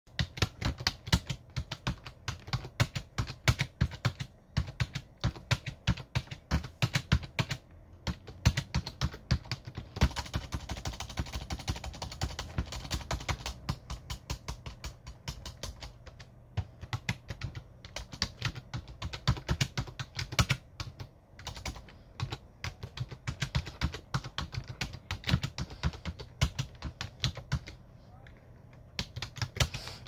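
Typing on a computer keyboard: a continuous run of key clicks, with a faster, denser burst about ten seconds in and a sparser stretch near the end.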